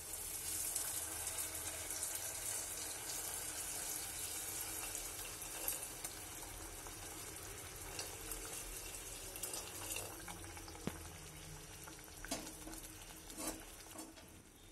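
Hot water poured in a steady stream into a pan of thick fish curry gravy, the pour fading after about ten seconds. A few sharp clicks come near the end.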